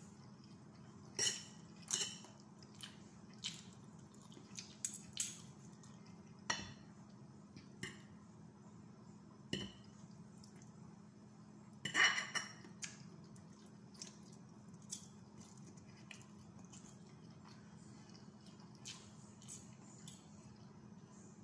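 Two metal forks clinking and scraping against a plate while tossing instant noodles: scattered, irregular clinks, with the loudest cluster about halfway through.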